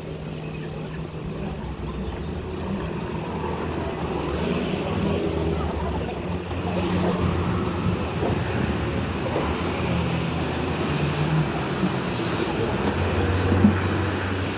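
City street traffic: cars and other road vehicles running and passing, with a steady low engine hum under the tyre and road noise.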